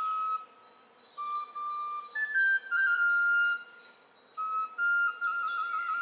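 End-blown flute playing a slow melody: held notes separated by short pauses, a run of short stepped notes in the middle, and a fluttering trill on a held note near the end.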